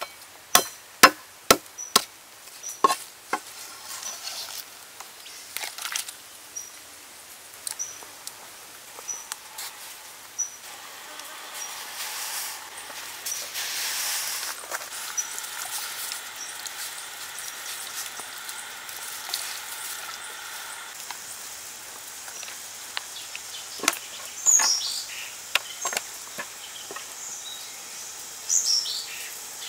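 A cleaver chops lemongrass on a wooden board, with four quick sharp strikes about a second apart at the start. Later a steel wok of water with the aromatics hisses steadily as it heats over the fire for about ten seconds. Near the end a knife cuts into a raw duck with a few sharp clicks.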